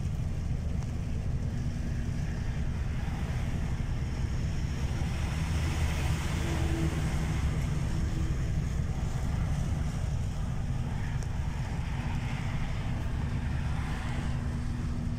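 Steady low rumble of a car driving on a wet road, heard inside the cabin, with tyre and spray hiss that swells around the middle.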